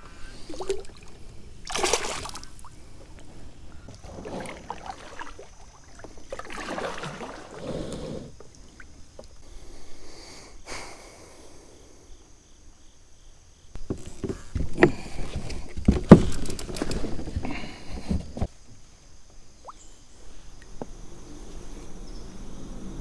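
Water sloshing and splashing against a fishing kayak, with scattered knocks on the hull that are busiest about two-thirds of the way through.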